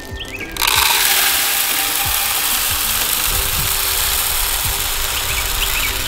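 Birdseed pouring from a plastic tub into a bird feeder's hopper: a steady rushing rattle of seed that starts about half a second in. A few bird chirps come through near the start and near the end.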